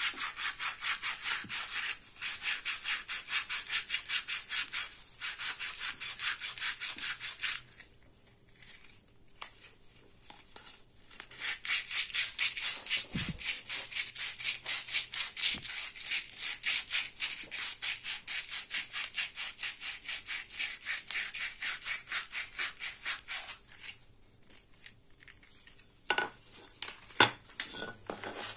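Sandpaper rubbed by hand back and forth along a wooden hammer handle in quick, even strokes, which stop twice for a few seconds. A few light knocks come near the end.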